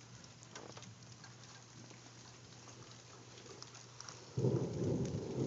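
Light rain pattering, with scattered small drop ticks. About four seconds in, a sudden loud low rumble breaks in and carries on for over a second.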